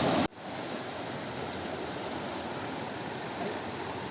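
Steady rush of river water flowing over stones. A louder rush cuts off abruptly just after the start.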